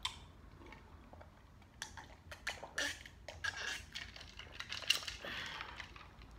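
A person drinking a glass of Kool-Aid: a string of gulps and swallows with small clicks, starting about two seconds in and stopping before the end.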